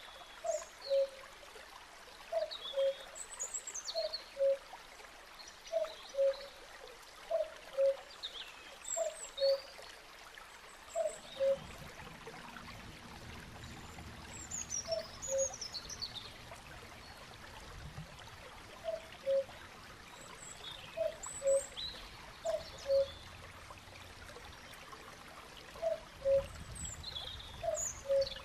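Riverside birdsong over trickling water: one bird repeats a two-note call every second or so, a higher note then a lower one, while small birds chirp high above. A low rumble joins the water sound about eleven seconds in.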